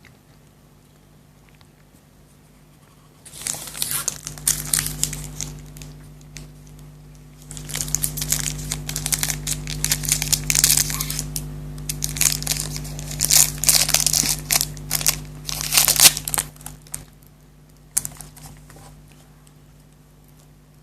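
Chocolate wrapper being crinkled and torn open in two spells of crackling, a short one and a longer one, with a single click near the end.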